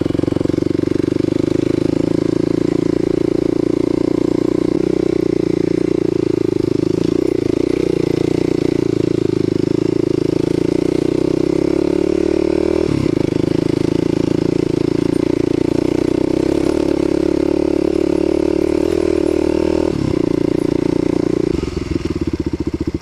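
Kawasaki KLX250SF supermoto's single-cylinder four-stroke engine running at a steady cruising throttle on a gravel trail, heard from on the bike. The revs dip briefly about halfway through and again near the end, then ease off.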